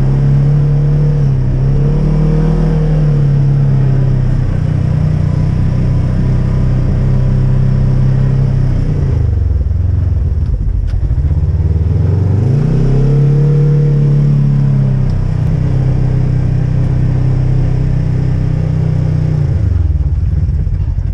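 Polaris RZR High Lifter side-by-side engine running under throttle while driving through snow. The revs fall away about nine seconds in, climb again a few seconds later, and drop once more near the end as it slows down.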